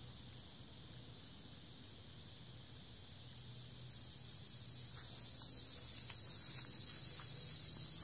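Insects chirping outdoors in a steady, high pulsing trill that grows louder over the second half.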